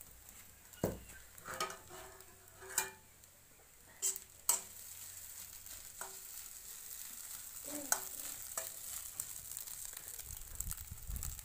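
A steel spatula stirring fried potatoes and eggs in a metal kadai, scraping and knocking against the pan in about eight irregular clinks, some of them briefly ringing. A faint steady hiss runs underneath.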